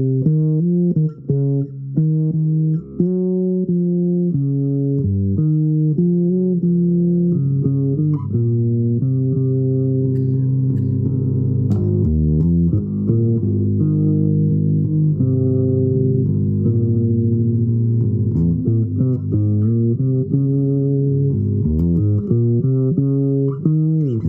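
Improvised solo music on a low-pitched string instrument: a slow line of held low notes, one after another without pause.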